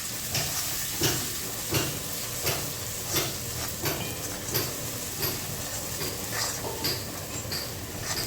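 Ground masala paste sizzling in hot mustard oil in a kadai, being stirred and fried down, with a spatula scraping the pan in regular strokes about every 0.7 seconds over a steady hiss.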